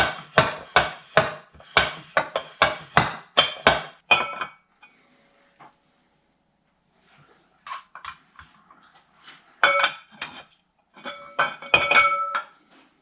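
Metal parts and hand tools clinking and tapping: a quick, even run of about four ringing metallic strikes a second for the first four seconds or so, then a pause, then scattered clinks and a few sharper ringing knocks near the end.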